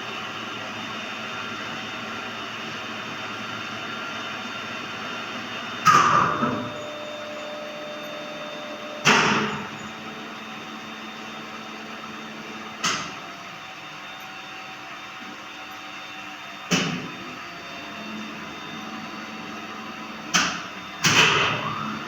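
A steady machine hum with several knocks at uneven intervals, each a few seconds apart, two of them close together near the end.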